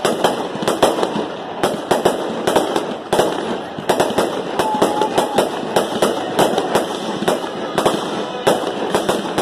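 Aerial fireworks shells bursting in quick succession during a fireworks display, several sharp bangs a second without a break.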